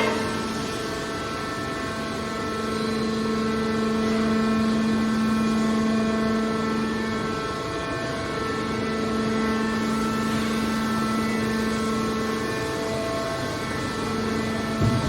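Hydraulic scrap metal baler's power unit running with a steady machine hum, its level swelling and easing slightly as it works.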